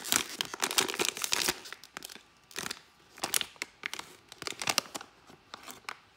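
Plastic blind bag crinkling as it is torn open and handled. The crinkling is dense for the first second and a half, then comes in scattered crackles.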